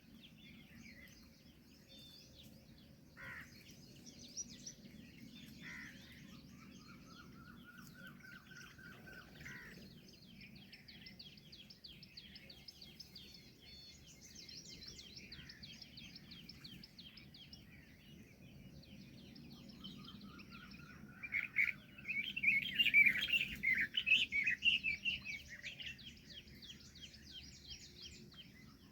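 Several birds chirping and twittering together in a steady chorus, with a louder, dense run of rapid chattering calls about three quarters of the way through.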